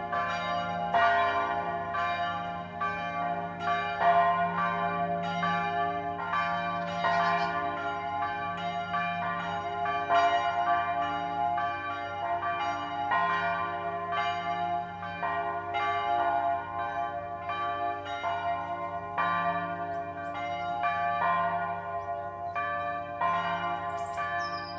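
Several church bells pealing together, strikes coming every fraction of a second and overlapping, each note ringing on under the next.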